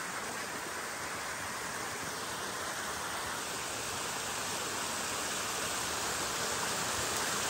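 Waterfall rushing: a steady, even noise of falling water that grows slightly louder toward the end.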